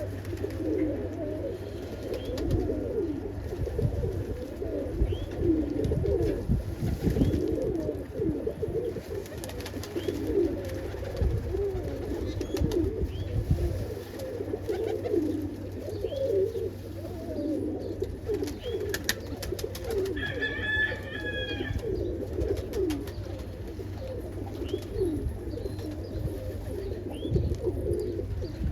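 A loft full of domestic pigeons cooing, many low coos overlapping one another without a break.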